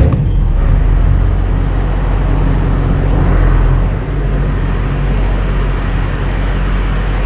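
Duramax LLY 6.6-litre V8 turbo diesel with a straight-piped exhaust firing up right at the start, then running at a steady idle that drops a little in level about four seconds in.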